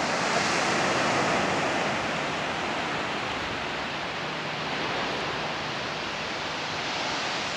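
Surf from small waves breaking and washing up a sandy beach: a steady hiss that swells about a second in, then eases off and swells gently again.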